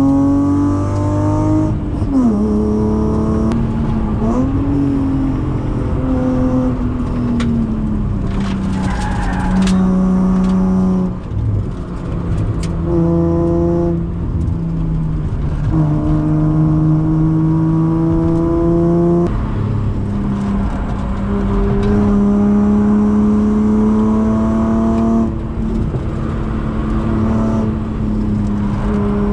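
BMW E36 323i's 2.5-litre straight-six with a Supersprint exhaust, heard from inside the cabin under hard acceleration on track: the revs climb steadily in long pulls and drop sharply at each gear change or lift, about seven times.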